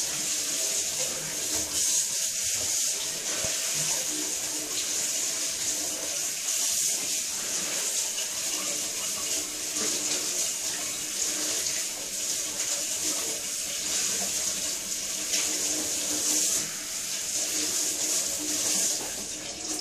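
Kitchen tap running steadily into a stainless-steel sink, the stream splashing over hands and whatever is being washed under it.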